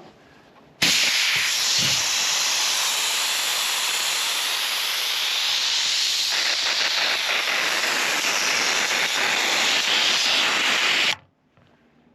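Compressed air hissing out of truck tires being aired down from about 30 psi, starting abruptly about a second in and cutting off suddenly near the end as the release is shut to check the pressure.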